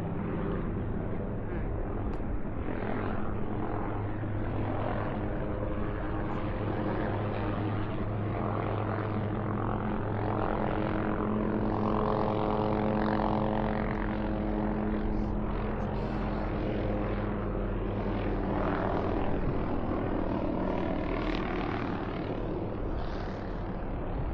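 A tour aircraft's engine droning overhead, a steady hum that swells slightly in the middle and then eases.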